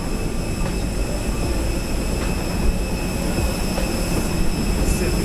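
Jet airliner cabin noise: a steady rumble of engines and airflow with several thin, steady high whines over it.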